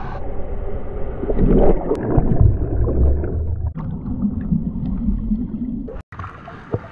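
Ocean waves breaking and churning water washing over an action camera held in the surf, a dense, muffled low rumble that is heaviest around two seconds in. The sound drops out briefly near the end at a cut.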